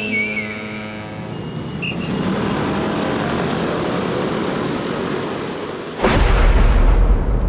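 A steady rushing noise, then a sudden loud, deep boom about six seconds in that carries on rumbling.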